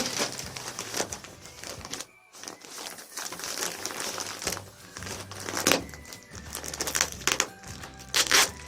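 Packaging crinkling and rustling in irregular bursts as it is handled, with a brief pause about two seconds in and sharper crackles near the end.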